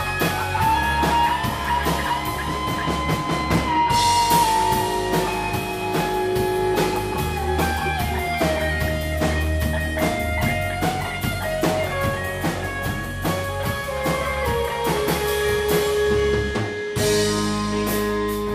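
Live rock band playing an instrumental passage: an electric guitar lead of long, bending notes that slowly steps down in pitch, over bass guitar and a Ludwig drum kit with steady cymbal strokes. Near the end the band cuts out for an instant and comes back in on a cymbal crash.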